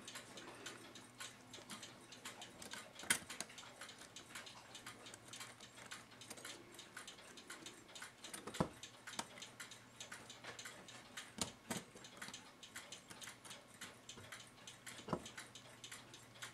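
Steady ticking of a mechanical clock, with a few sharper clicks of brass clock-movement parts being handled as the wheel pivots are worked into the plates.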